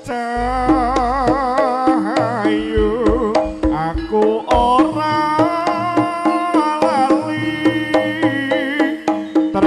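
Javanese jaranan ensemble music: a wavering, sliding melody line over a steady low held tone, with scattered drum strikes.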